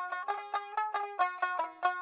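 Background music: a quick, rhythmic run of bright plucked-string notes in the style of a banjo or mandolin.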